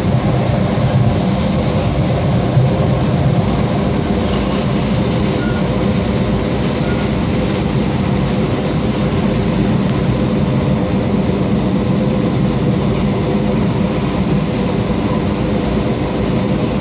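Long Island Rail Road train running steadily through a tunnel, heard from inside the car: an even, loud rumble of wheels and running gear with a faint steady hum in it.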